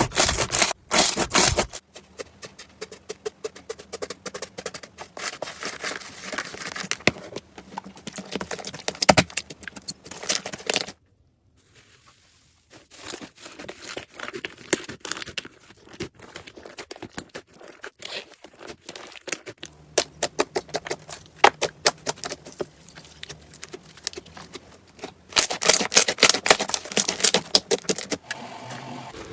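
Slime being squeezed and poked by hand, with dense crackling and popping. It comes as a string of separate clips, broken by a brief near-silent gap about a third of the way in, with the loudest crackling near the end.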